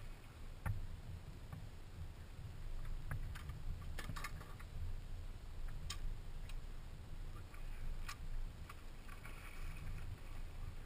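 Steady low rumble of wind and water against a fishing boat, with a few sharp clicks and knocks spread through it, while a hooked sturgeon is fought and netted alongside.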